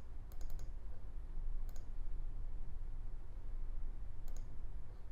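Computer mouse clicking: a quick run of about three clicks around half a second in, then single clicks a little before 2 s and past 4 s. A steady low hum runs underneath.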